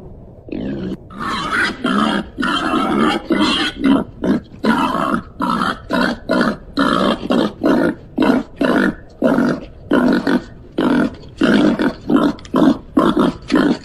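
Babirusa calling: a rapid, regular series of short calls, about two a second, that starts about half a second in and keeps going.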